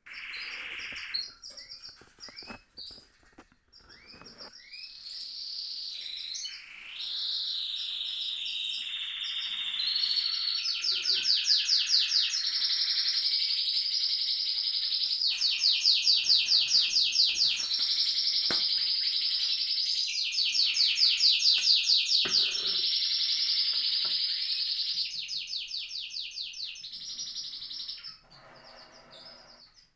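Domestic canary singing: a few short chirps, then one long, continuous song with several stretches of very rapid trills. The song stops about two seconds before the end, leaving faint chirps.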